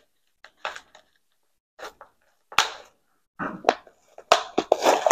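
Irregular crackles and rustles of a houseplant being worked out of its pot, with the pot and potting mix being handled. The sounds are sparse at first and get busier in the last couple of seconds.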